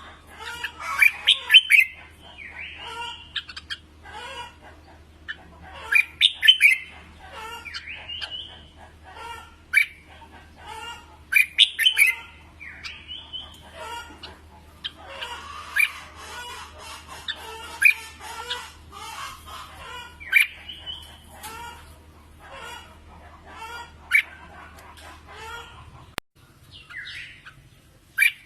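Red-whiskered bulbuls singing: loud, short warbled song phrases every few seconds over constant softer chattering calls. A low hum underneath stops near the end.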